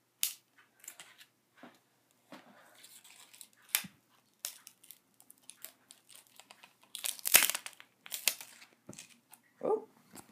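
Scissors and hand tools prying and cutting at a smashed iPod's casing: scattered clicks, crackles and crunches of metal, plastic and broken glass. A burst of the sharpest cracks comes about seven to eight seconds in.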